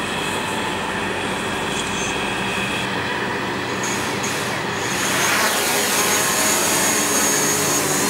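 DJI Mavic quadcopter's motors and propellers spin up about five seconds in, rising in pitch as the drone lifts off, then hold a steady high whine as it hovers.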